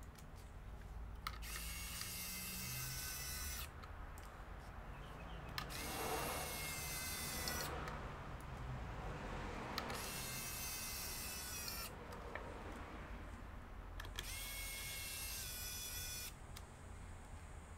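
Hot-air rework station blowing in four short bursts of about two seconds each, its blower whining up as each burst starts, while heating parts on a laptop motherboard.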